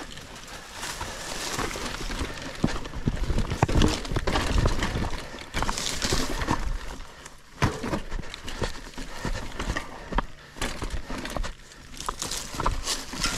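Mountain bike riding down rocky singletrack: tyres crunching over rock and dirt, with many sharp clicks and knocks from the bike rattling over the rough ground. Bushes brush and scrape against the handlebars and rider.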